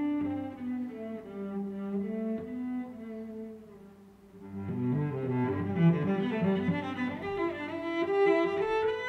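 Instrumental background music with long held notes. It drops low about four seconds in, then comes back fuller.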